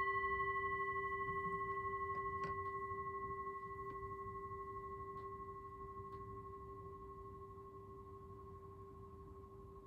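Meditation bell ringing out after a single strike, several clear pure tones slowly fading, with a gentle pulsing waver in the sound.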